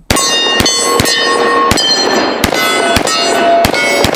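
Dan Wesson Vigil 1911 .45 ACP pistol fired unsuppressed, about eight shots in quick succession, with steel targets ringing between the shots.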